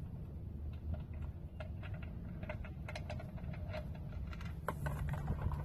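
Engine oil dripping from the open drain hole into a drain pan: a faint, irregular patter of drips over a low rumble.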